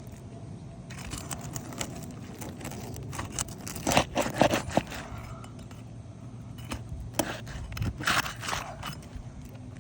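Irregular scraping and clicking of hands and tools working on asphalt roof shingles, loudest in two short clusters about four and eight seconds in.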